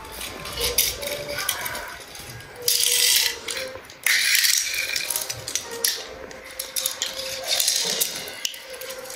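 Small die-cast toy cars pushed by hand across a hard marble tile floor, their wheels rattling and scraping in bursts, the loudest about three and four seconds in.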